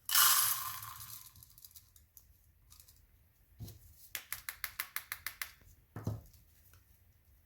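Granular firework lift powder poured out into a container, a loud rush of grains fading over about a second. Later come a couple of soft knocks and a quick run of about ten light clicks.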